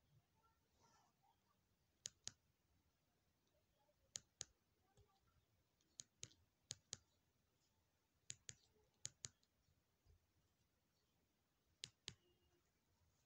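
Faint, sharp clicks coming in quick pairs, about seven pairs at irregular intervals.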